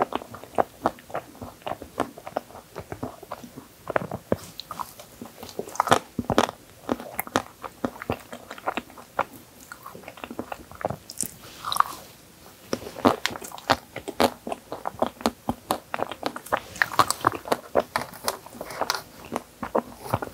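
Crunching and chewing while eating spoonfuls of cookies-and-cream tiramisu topped with Oreo crumbs and white chocolate pieces.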